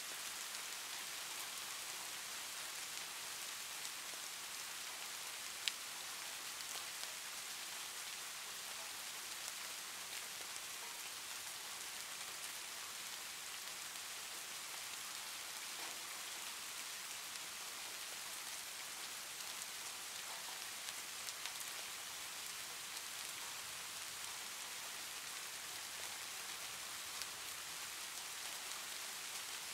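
Soft rain ambience recording: a steady hiss of rain with faint scattered drop ticks, and one sharper click about six seconds in.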